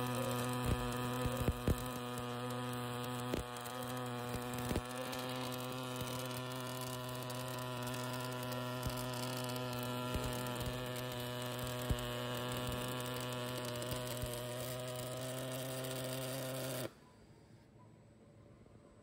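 MIG welding arc of an automatic CNC welding machine running a seam: a steady buzzing hum with a few sharp crackles. It cuts off suddenly about seventeen seconds in as the arc stops at the end of the weld.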